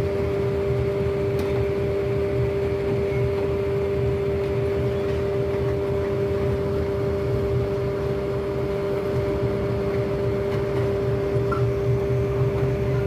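Diesel locomotive running steadily: a constant low engine rumble with two steady humming tones over an even hiss.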